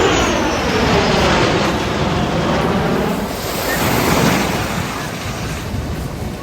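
Jet aircraft flying past: its engine tone falls steadily in pitch as it goes by, followed by a loud rushing noise that swells again about four seconds in and then fades.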